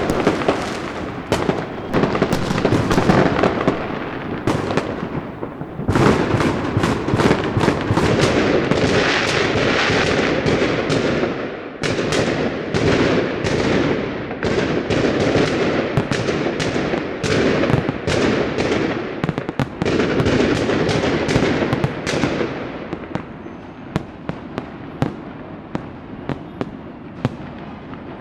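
Fireworks and firecrackers going off in a dense, rapid string of bangs over continuous crackling. The barrage thins out to scattered separate pops in the last few seconds.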